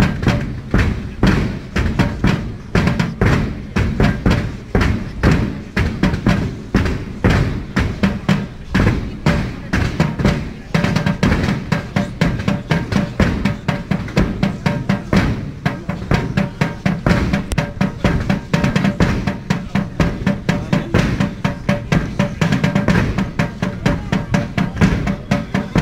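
Rhythmic drumming with bass drum and snare, keeping a steady beat of about two strokes a second.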